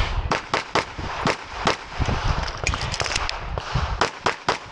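Semi-automatic pistol fired in a fast string of shots, many of them in quick pairs.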